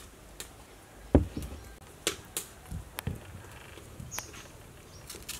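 Scattered knocks and taps of kitchen work on a wooden chopping board: a heavy thump about a second in, then lighter knocks, and a kitchen knife starting to cut into an onion near the end.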